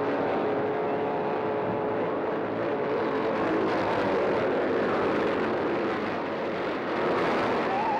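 Racing car engines running at speed, a steady, unbroken engine noise.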